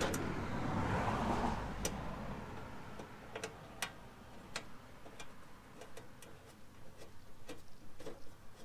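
Handling noise for about two seconds, then a string of light, irregular clicks as a bolt is started and turned into an M6 nutsert in the fender panel.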